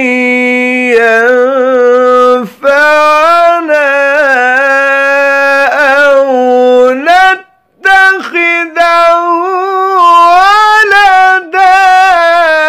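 A man's solo voice reciting the Quran in melodic tajweed style, drawing out long ornamented notes. He pauses for breath briefly about two and a half seconds in and again around seven and a half seconds in, then carries on with the melody.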